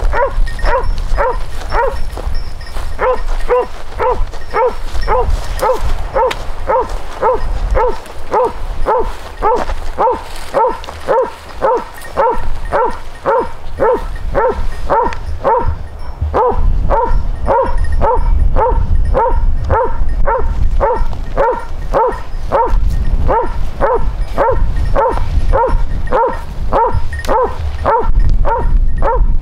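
Hunting dog barking steadily and rhythmically, about two barks a second, with only a brief pause about halfway through.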